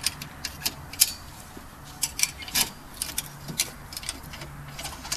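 Ratchet strap buckle being pumped by hand: an irregular run of sharp metallic clicks, some in quick pairs, as the ratchet takes up the webbing strap and tightens the tow A-frame onto the car's wishbone.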